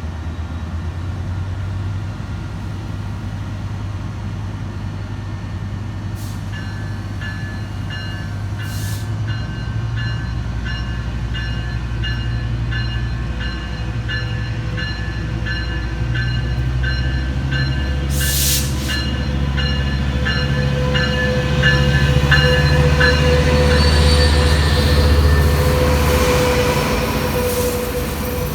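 Diesel locomotive of a passenger train running as it approaches, its low engine hum growing louder. A bell rings in a steady rhythm from several seconds in until a few seconds before the end, and wheel and rail noise rises near the end.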